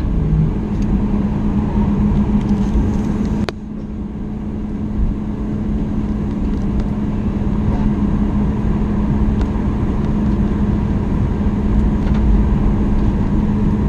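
Boeing 737 MAX 8 cabin noise heard from inside: a steady hum over a loud low rumble. There is an abrupt break about three and a half seconds in.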